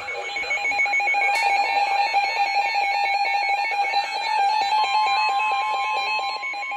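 NOAA Weather Radio alert sounding for a special marine warning: a fast-pulsing, warbling electronic alarm, joined about five seconds in by the steady warning tone.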